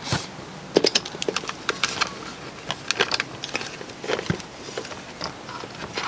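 Irregular sharp clicks and knocks of a dishwasher's plastic circulation pump and heater element assembly being handled and pushed into place in the machine's frame.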